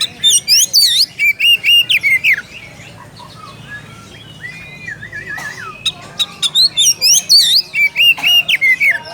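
Oriental magpie-robin singing a challenge song to a rival: two loud runs of quick whistled notes that swoop up and down, with quieter warbling between them.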